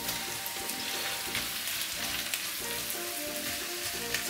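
Pieces of curry-marinated chicken sizzling as they start to fry in hot butter and oil with onions in a pot, stirred with a plastic spatula. Steady frying hiss.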